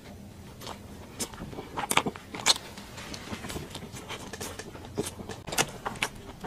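Close-miked eating: a person biting and chewing soft bread with a chewy mochi filling, wet mouth clicks and smacks scattered throughout, with sharper ones around two seconds in and near the end.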